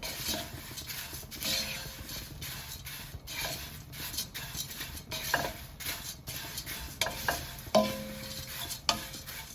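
Red rice flakes being dry-roasted in a pan and stirred with a spatula: a dry rustling scrape with many irregular clicks as the spatula hits the pan. The flakes are nearly done and crisp.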